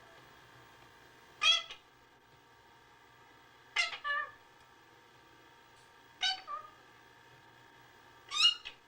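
Meowing: four short meows spaced about two seconds apart, some followed by a second, shorter note.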